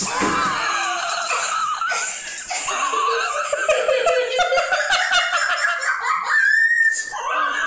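High-pitched laughter, wavering and almost unbroken, with a held squeal about six and a half seconds in.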